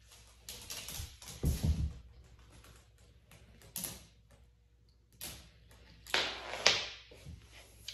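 Marbles rolling and clattering through a plastic Action & Reaction marble run, a string of irregular clicks and rattles with louder clatters about two seconds in and again past six seconds.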